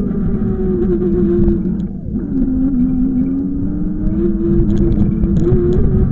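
A road vehicle running with a steady low rumble; its engine or motor tone drops about two seconds in as it slows, then climbs gradually back as it picks up speed.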